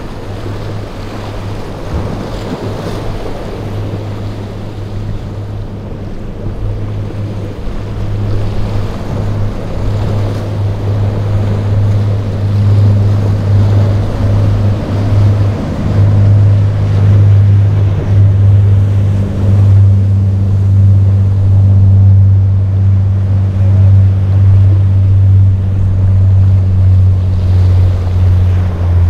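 Sportfishing yacht's inboard engines running with a steady low drone, growing louder about twelve seconds in as the boat comes close, over the rush of breaking waves and spray, with wind on the microphone.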